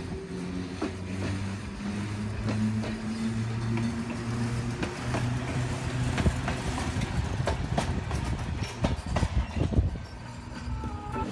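Electric trolley car passing close by on the rails: a steady hum from its motors and gearing, with sharp wheel clicks over the rail joints in the second half.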